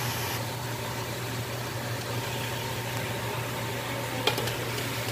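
Steady hiss and hum of pork and vegetables cooking in a covered wok. About four seconds in, a few sharp clinks as the glass lid is lifted off the wok's rim.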